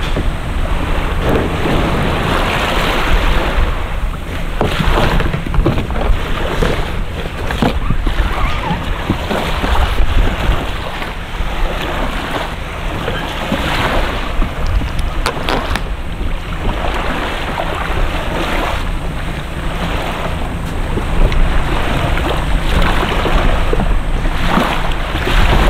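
Water splashing and lapping around a kayak, in surges every second or two, with steady wind buffeting the microphone.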